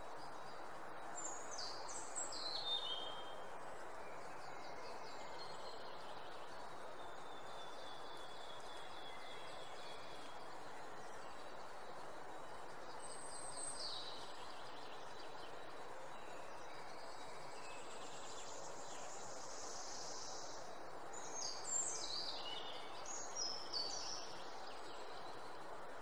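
Songbird singing in three short bursts of quick, high, falling notes, near the start, around the middle and near the end, over a steady hiss of outdoor ambience.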